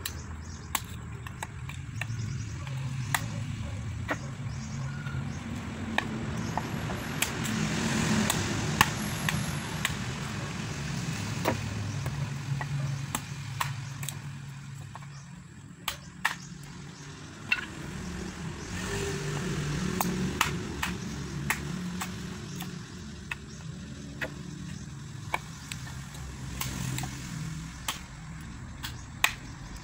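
Machete chopping and splitting firewood: sharp, irregular knocks of the blade striking wood, roughly one every second or two, over a steady low rumble.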